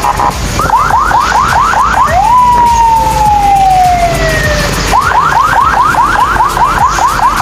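Electronic emergency siren on a fast yelp, rising sweeps about five a second. A little after two seconds in it switches to one long tone that falls slowly for about two and a half seconds, then goes back to the fast yelp.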